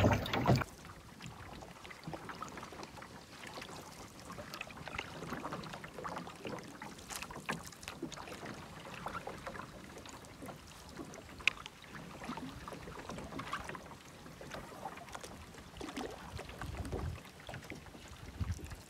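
Quiet canoe paddling: soft paddle dips, splashes and drips of water, with light ticks and one sharper tick about eleven seconds in. A low rumble comes in near the end.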